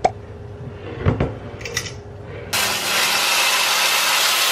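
A few clicks and knocks of a utensil against a glass pickle jar, then, about two and a half seconds in, a sudden loud sizzle that holds steady: smoking-hot oil poured from a pan over a bowl of Sichuan boiled meat (shui zhu rou) topped with chili and sesame.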